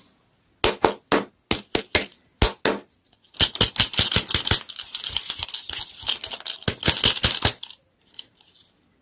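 Crinkly plastic wrapper on a ToyBox toy lollipop ball crackling as the ball is handled and spun in the hand. About a dozen sharp separate crackles come first, then a dense run of crinkling for about four seconds that stops shortly before the end.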